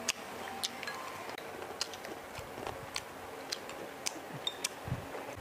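Irregular light clicks and taps of chopsticks against ceramic bowls and plates while people eat.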